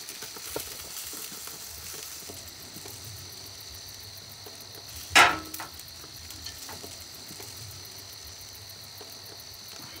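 Food sizzling steadily on an outdoor barbecue grill, with one brief louder noise about five seconds in.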